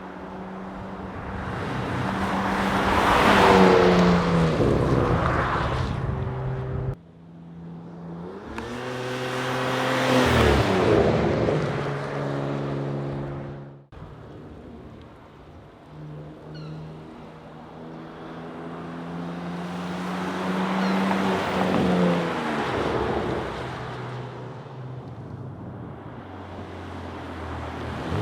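Porsche Macan Turbo's twin-turbo V6 through a Soul Performance resonated muffler bypass exhaust, driving past three times: each pass swells up, peaks and fades, with the engine's note dropping in pitch as the car goes by.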